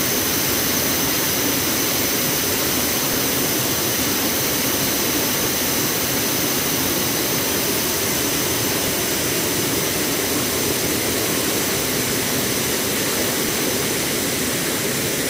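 Waterfall pouring over a wide ledge into a churning, foaming pool: a steady, loud rush of falling water.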